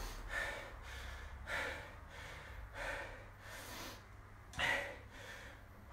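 A man panting heavily, taking a series of hard, noisy breaths while recovering from a high-intensity interval of mountain climbers. The loudest breath comes about four and a half seconds in.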